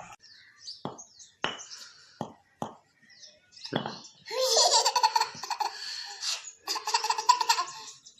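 A baby laughing in repeated high-pitched bursts from about four seconds in, after a few short sharp knocks.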